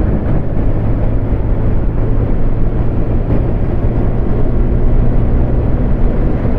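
Motorcycle engine holding a steady road speed, a low even drone under wind noise on the microphone.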